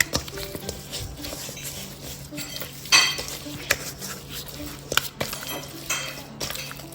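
Seasoned raw chicken thighs being stirred and tossed in a bowl, with irregular clinks and knocks of a utensil against the dish; the sharpest clink comes about three seconds in.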